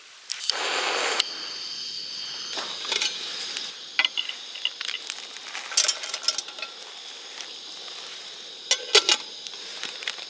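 Portable gas camping burner catching with a short whoosh about half a second in, then hissing steadily under a metal kettle. Scattered clinks and rustles as dried corn silk tea is tipped from a plastic bag into the kettle.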